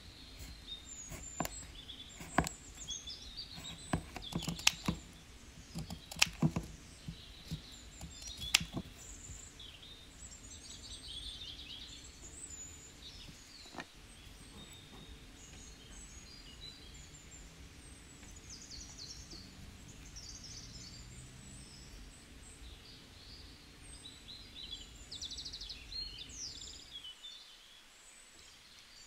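Birds chirping and trilling in the background against a low room hum. A few sharp clicks and taps come in the first nine seconds as small cardstock pieces are handled.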